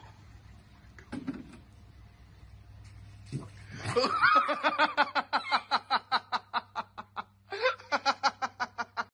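A sudden splutter about three seconds in, then a woman laughing hard in rapid, even 'ha-ha' pulses, about four to six a second, in two long runs with a short catch of breath between them.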